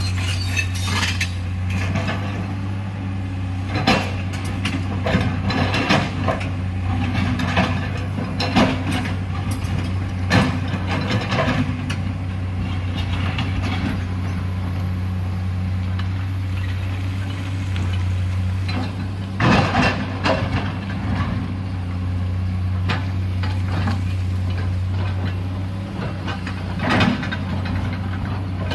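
Excavator's diesel engine running steadily, with scattered clanks and knocks as the bucket works into rock and soil.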